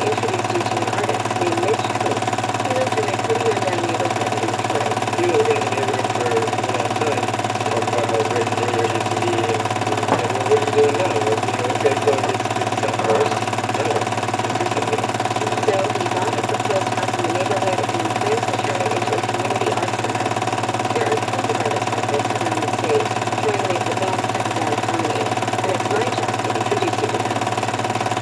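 Film projector running: a steady motor whirr with a constant hum.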